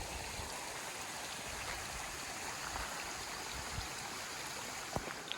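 Creek water flowing steadily over rocks, an even rushing, with one short click near the end.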